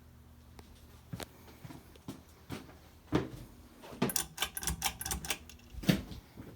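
Ceiling fans running with a steady low hum, under irregular sharp clicks and knocks and a quick run of clicks about four to five seconds in.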